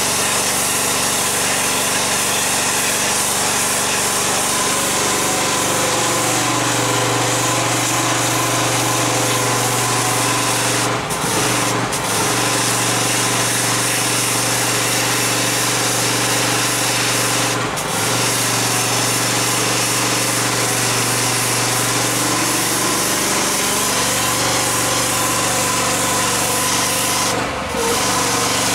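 Pressure washer running steadily: the drone of its motor and pump under the hiss of the water jet on wet paving slabs. The drone drops in pitch a few seconds in and rises again near the end, and the sound dips briefly a few times.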